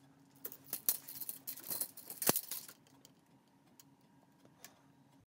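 Handling of a steel tape measure: scattered clicks and light rattling, with one sharp click a little over two seconds in. A faint low hum follows.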